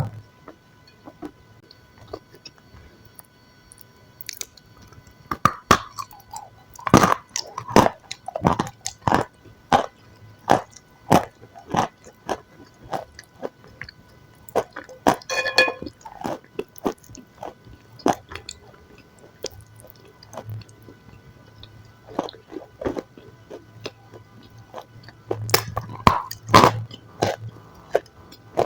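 Close-miked eating sounds: a person chewing and biting food, with sharp crunchy crackles coming about once or twice a second.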